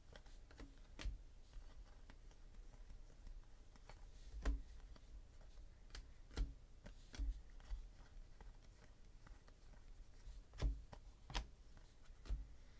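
Trading cards handled and flipped through one by one: soft flicks and taps of card on card, irregular, about one every second or so.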